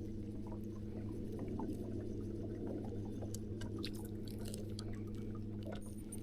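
A steady low hum with a few even tones, with scattered faint small ticks and drips over it.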